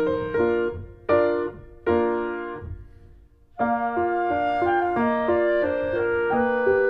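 Background piano music: a few struck chords that die away, a brief lull near the middle, then a steady flowing melody picks up again.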